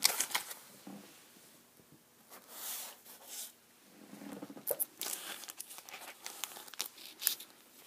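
Plastic comic-book bags crinkling and rustling in irregular bursts as bagged comics are handled and shifted, with a sharp tap near the end.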